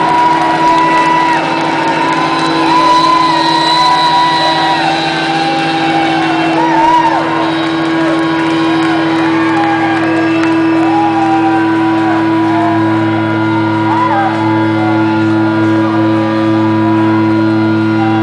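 Live rock band playing: long sustained notes held steady underneath, with a wavering, bending higher line over them.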